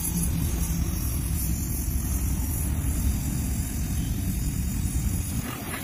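Gas welding torch flame burning steadily on an aluminium wheel rim: a steady low rushing noise with a thin high hiss over it.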